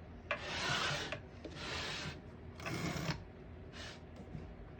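Margin stops on a 1936 Corona Standard typewriter being slid by finger along their rail behind the carriage: four short metal scraping strokes.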